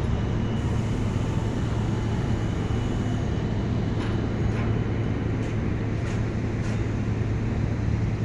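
Boat engine running at a steady low drone, with a few faint ticks in the middle.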